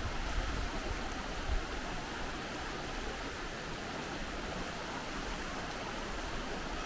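Swollen floodwater rushing fast over a shallow gravel creek bed in a steady wash, with a low bump about a second and a half in.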